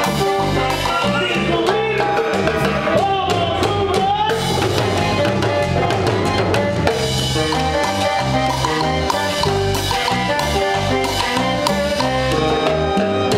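Live Latin dance band playing a cumbia: güiro scraping over electric bass, drums and percussion, with a steady dance beat.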